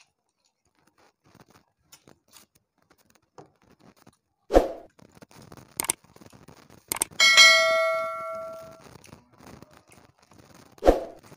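Subscribe-button animation sound effect: a knock, a couple of mouse clicks, then a notification bell that dings and rings out for about a second, and another knock near the end. Faint sounds of eating by hand lie underneath.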